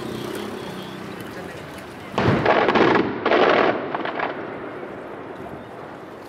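Traditional Maltese aerial firework shells going off: a sudden loud bang about two seconds in, a second blast about a second later and a smaller one after that, then a rolling echo that slowly dies away.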